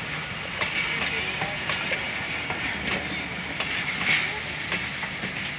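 Pakistan Railways passenger coaches rolling past close by: a steady rush of wheel and rail noise with repeated sharp wheel clicks. The sharpest click comes about four seconds in.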